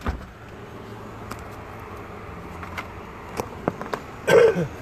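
A few light clicks and knocks of things being handled in a truck's cargo area, over a steady background hum tagged as vehicle noise; a brief voice sound near the end.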